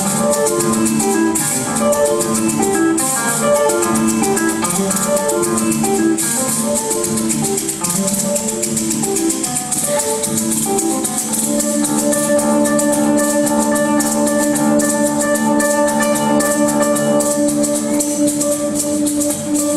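Live acoustic trio music: maracas shaken in a steady rhythm over a classical guitar and a small plucked string instrument. About halfway through, the quick plucked figures give way to longer held notes.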